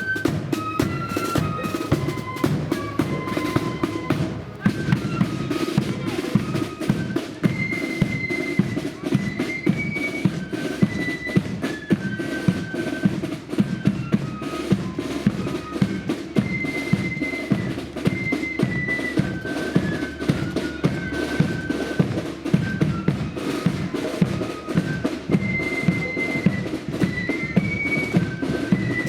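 Marching flute band playing a tune: flutes carry a high melody over snare drums and a steady bass drum beat. The music dips briefly about four and a half seconds in.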